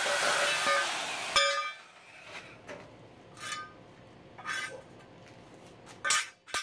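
Portable band saw cutting through steel angle iron, the motor and blade noise stopping abruptly with a clunk about a second and a half in. Then several clinks and clanks with a short metallic ring as the cut steel angle pieces are handled.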